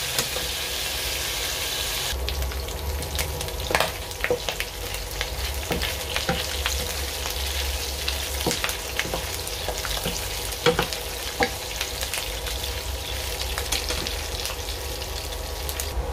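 Pork belly cubes sizzling steadily as they render and fry in their own fat in a nonstick pan, stirred with a wooden spatula, with scattered sharp clicks and pops.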